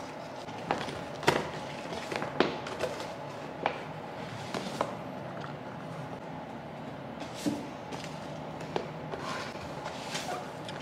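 Holographic plastic bag crinkling and rustling as it is handled and opened, with a string of sharp crackles spread through and softer rustles near the end, over a faint steady hum.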